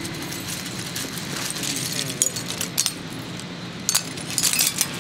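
Shredded electronic scrap, fragments of circuit board, metal and plastic, clinking and rattling as a hand picks through it. The clinks are irregular, with a quick cluster near the end, over a steady low hum.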